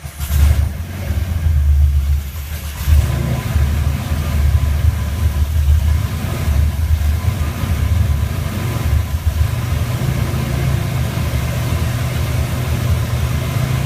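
Rotec R3600 nine-cylinder radial aero engine catching on the test stand. It runs rough and uneven for the first few seconds, then settles into a steady low idle. It is a start that needed a little more priming.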